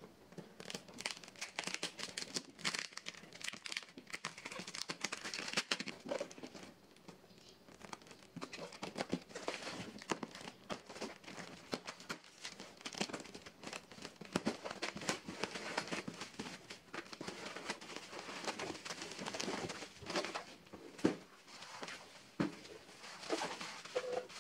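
Plastic packing wrap and tape being torn and crinkled by hand as a cardboard parcel is opened, with cardboard rustling and scraping; irregular crackling and tearing throughout. Near the end, black bubble wrap crinkles as it is handled.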